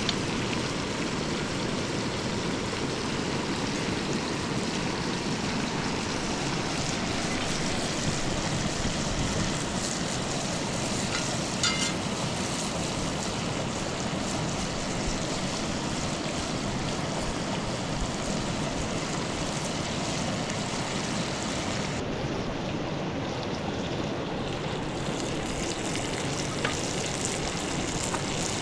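River water rushing steadily, with one sharp click about twelve seconds in.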